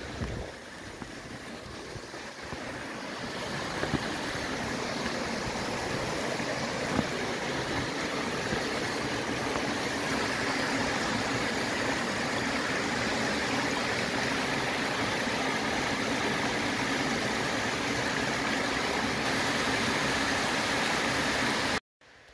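Steady rush of a small mountain waterfall and the stream below it, swelling over the first few seconds, then holding even until it cuts off suddenly near the end.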